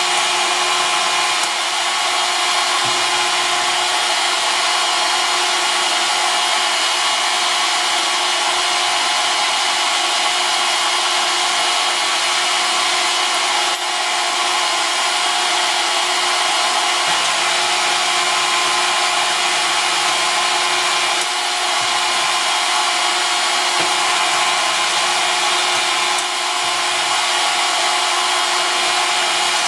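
Metal lathe running: a steady whirring hiss with a constant hum, and a lower hum that comes and goes several times.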